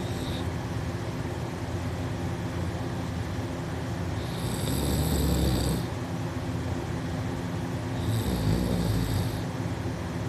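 A sleeping person snoring: two long snoring breaths about four seconds apart, each lasting over a second, over a steady background hum.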